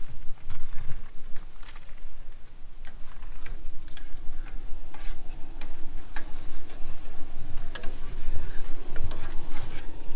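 Scattered light clicks and knocks of camp cooking gear being handled over a low, uneven rumble of wind on the microphone. About halfway through, a faint steady high whine comes in.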